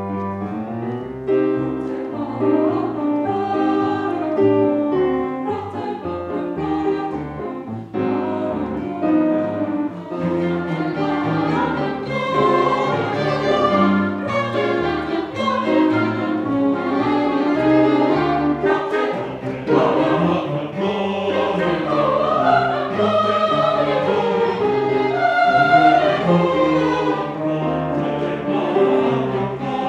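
Mixed choir singing with a small tango-style chamber ensemble of bowed strings, piano and organ.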